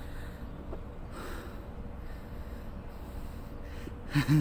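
A low background hum runs steadily. Near the end a man makes a brief, loud sound with his breath and voice together.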